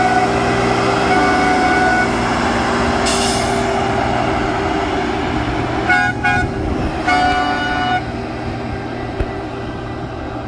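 Railroad maintenance-of-way machine running steadily as it passes, its engine a constant low hum. A brief hiss comes about three seconds in, and the machine's horn gives two short toots past the middle.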